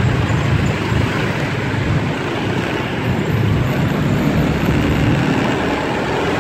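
Steady road noise from a vehicle moving through city traffic: engine and tyre noise with a strong low rumble.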